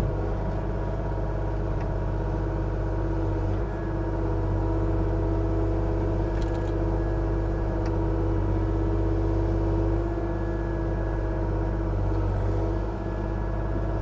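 Kubota KX040-4 mini excavator's diesel engine running at a steady speed while the machine digs, its loudness dipping briefly twice.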